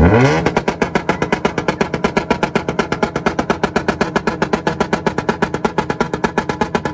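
An Acura's engine revs up, then is held on a two-step launch limiter, stuttering in rapid, even pops about eight times a second.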